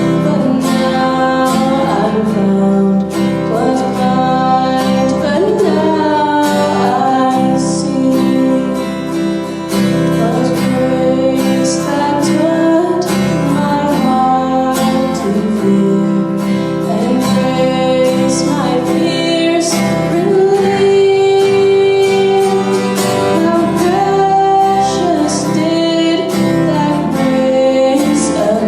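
A song with a woman singing over strummed acoustic guitar.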